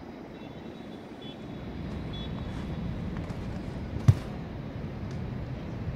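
Steady low rumble of city traffic, with a single sharp knock about four seconds in.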